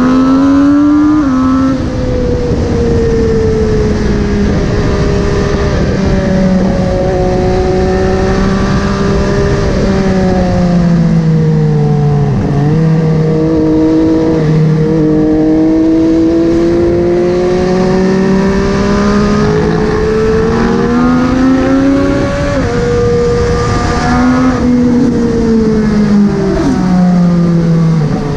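MV Agusta Dragster 800's three-cylinder engine through a QD Power Gun exhaust, riding along: the engine note climbs under throttle and drops back at gear changes and when rolling off, several times over.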